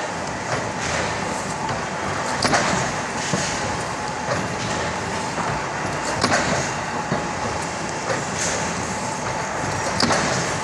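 Clamshell platen die-cutting press running over a steady machine hum, with three strong clacks about four seconds apart as the platen closes on the cardboard sheets.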